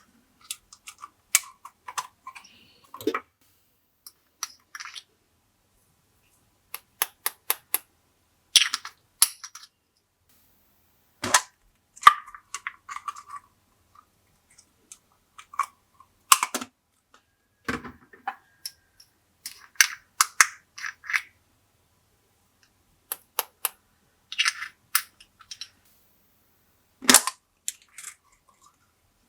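Glossy slime being squished and mixed by hand, giving irregular sharp pops and crackles with short silent gaps between.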